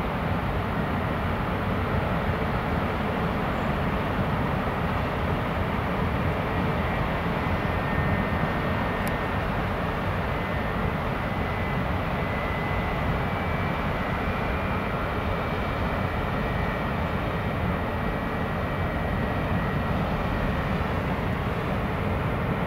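Ferry Mecklenburg-Vorpommern's engines and propellers running as it berths stern-first, a steady drone with churning propeller wash and a faint high whine.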